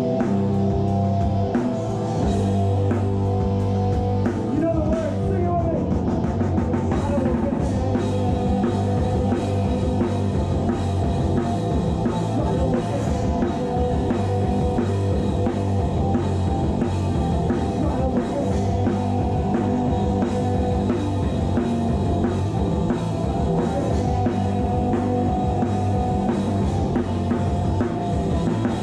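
A live rock band of drum kit, bass and electric guitar playing a song, recorded close to the drums, which keep a steady beat over sustained bass and guitar.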